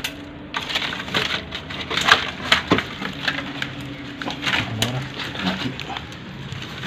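Dry leaves, twigs and grit crunching and crackling in irregular sharp clicks as hands and feet work through rooftop litter around a small banyan's roots. A faint steady low hum runs underneath.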